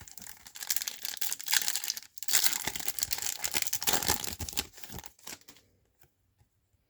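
Trading card pack wrapper being torn open and crinkled, a dense crackling rustle that stops a little over five seconds in.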